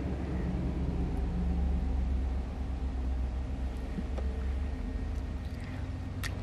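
Steady low rumble in a parked car's cabin from the car's engine idling, with a faint click about four seconds in.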